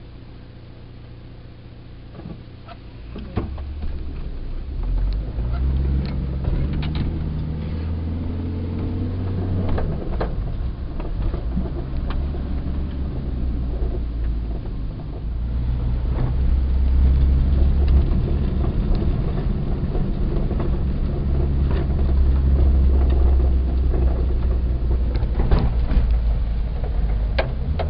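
VW bus engine heard from inside the cab, quiet at first and then louder as the bus pulls away about three seconds in, with a heavier drone from about halfway. Short clicks and rattles from the cab come and go over it.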